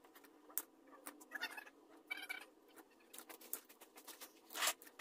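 Two pairs of pliers gripping and twisting the end of a lawnmower's thin steel control cable to wrap its loose strands together: faint scattered clicks and scratching, with a few brief scraping flurries.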